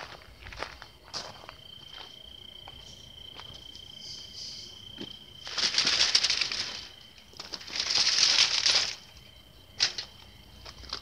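Footsteps outdoors at night with an insect trilling steadily on one high note, and two loud rustling swishes, each over a second long, about halfway through.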